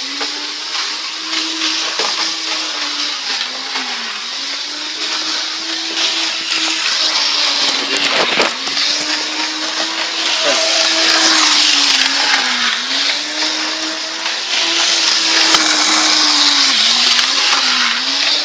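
Electric model train running on its track: a steady motor whir with rolling wheel hiss, its pitch dipping briefly every few seconds.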